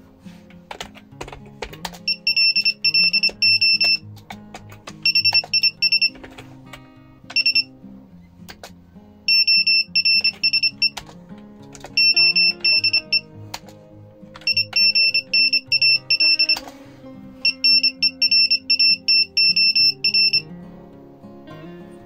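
Arduino Morse code generator's piezo buzzer beeping Morse code at 25 words per minute: short and long high-pitched beeps of one steady pitch, in bursts separated by pauses, sounding out text as it is typed. Acoustic guitar background music plays underneath.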